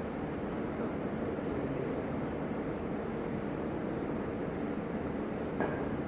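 An insect chirping, cricket-like: two trains of rapid, high-pitched pulses, one short and one about a second and a half long, over a steady low room murmur, with one sharp click near the end.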